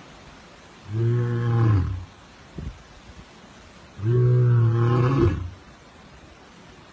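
Male lion roaring: two calls at a steady low pitch, the first about a second in and a slightly longer one about four seconds in.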